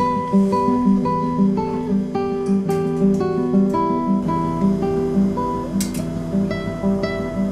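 Background music: guitar strumming a steady, repeating chord pattern.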